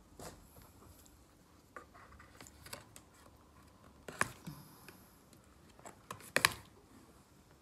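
Light clicks and crackles of cardboard and clear plastic packaging being handled and pried open by hand. The two sharpest clicks come about four seconds in and about six and a half seconds in.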